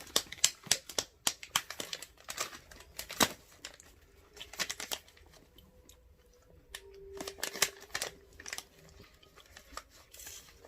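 Plastic packaging crinkling and rustling in quick irregular crackles. They are densest in the first few seconds and come back in shorter spells later.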